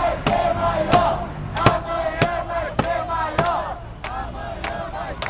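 A crowd of protesters chanting or singing together to a sharp, steady beat struck about every two-thirds of a second.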